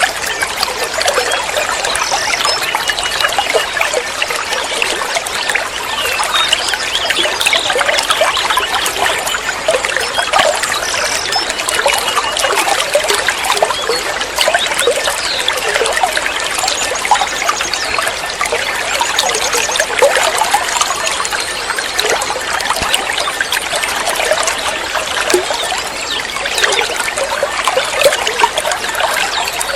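Water trickling and gurgling steadily, like a small stream, with a few faint short bird trills here and there.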